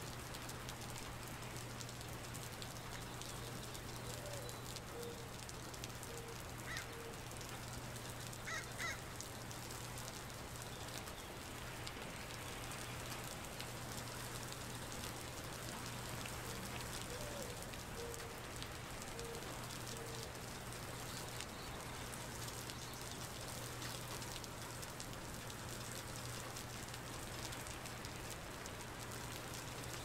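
Steady rain falling onto a wet paved surface and its puddles, under a steady low hum. An animal calls a short run of notes twice, about 4 and 17 seconds in, and a few short sharp calls stand out around 7 to 9 seconds in.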